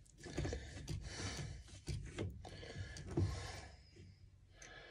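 Handling noise: irregular rubbing and a few light knocks of things being moved about on a workbench, the loudest knock a little past three seconds in.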